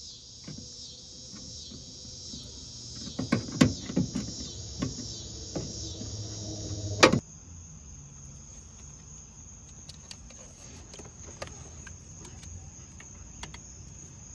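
Crickets chirping in a pulsing high chorus, with scattered knocks and clicks in the first half and a sharp thump about seven seconds in. After the thump only a thinner, steady high insect trill remains.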